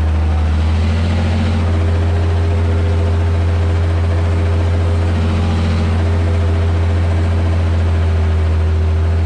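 Ursus 1214 tractor's six-cylinder diesel engine running steadily under load while pulling a plough, heard from inside the cab as a deep, even drone.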